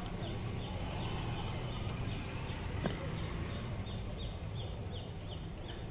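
Street background noise: a steady low rumble with a short, high chirp repeating about three times a second. A single sharp click comes about halfway through.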